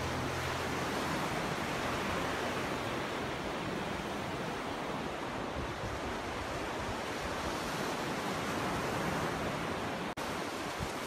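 Ocean surf on a sandy beach: a steady rush of small waves breaking and washing up the shore, swelling and easing gently. It cuts out for an instant about ten seconds in.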